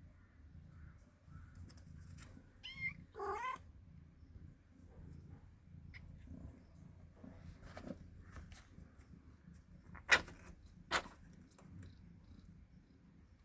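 Kitten mewing: two short, high, wavering mews about three seconds in. Near the end come two sharp knocks about a second apart.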